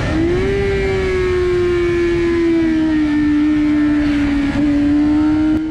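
Suzuki GSX-R 600 K8's inline-four engine, with an Akrapovic full exhaust, running hard at high revs on track, with wind rushing over the onboard microphone. The engine note picks up at the start, then holds high and sags slowly. A brief cut near the end comes before it rises again.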